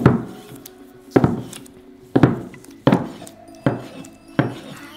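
Wide-bladed cleaver chopping through a log of soft potato dough and striking a plastic cutting board: six sharp chops, each under a second apart.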